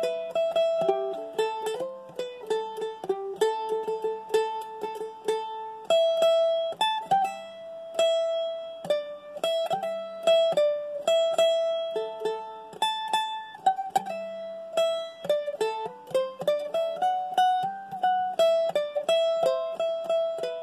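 Solo mandolin playing a slow melody, picked note by note with some notes held.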